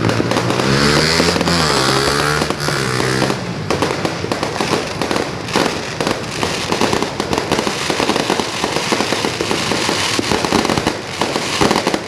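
A dense barrage of fireworks and firecrackers: rapid, overlapping bangs and crackling with no break. Over the first three seconds or so a wavering, horn-like pitched tone sounds over the bangs.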